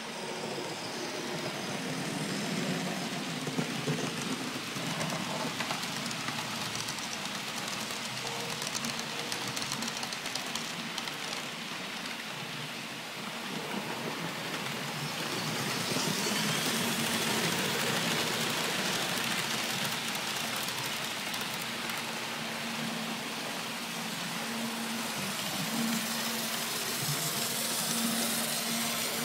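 HAG model electric locomotives hauling coaches on a model railway, giving a steady rolling rattle of wheels on track. It gets louder about halfway through, and a low motor hum comes in near the end.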